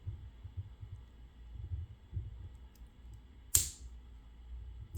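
Low handling knocks, then one sharp click about three and a half seconds in as a tool is seated in the opened Goal P lock to trap its side ball bearings.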